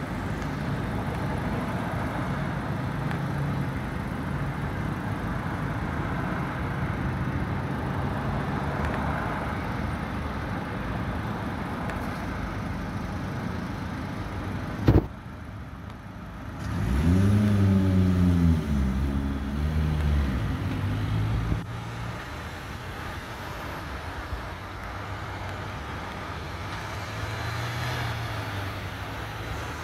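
Street traffic running steadily. About halfway through, after a sharp click, a vehicle engine close by grows loud for a few seconds, its pitch rising and falling, then cuts off suddenly.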